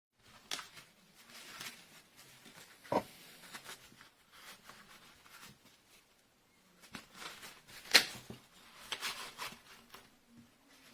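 Hands handling a 15-in-1 multi-purpose pocket knife and its case: scattered clicks and knocks with light rustling and scraping between them, the sharpest click about eight seconds in.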